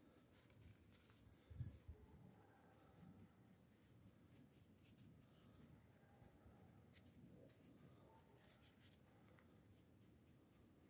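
Near silence with faint, scattered scratchy crackles of puppies' paws on packed snow, and a soft low thump about a second and a half in.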